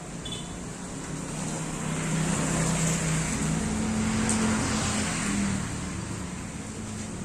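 A motor vehicle drives past. Its engine note and road noise build to a peak about halfway through, then fade.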